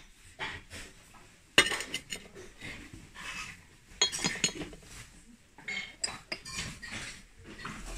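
Porcelain dishes clinking and knocking together as they are set down and moved around by hand in a box. It is a string of separate clinks, the loudest about a second and a half in.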